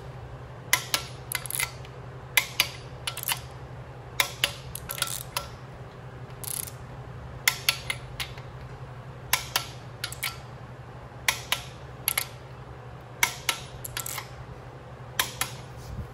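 Torque wrench ratcheting as the main bearing cap bolts on a Ford 351 Windsor block are torqued down: sharp metallic clicks in twos and threes about every second, over a steady low hum.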